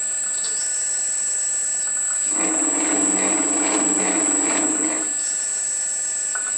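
Atlas 7B metal shaper's drive being thrown in and out with its clutch lever: the rhythmic running of the ram and gearing stops, starts again about two and a half seconds in, and stops again at about five seconds. A faint steady whine from the VFD-driven motor carries on underneath.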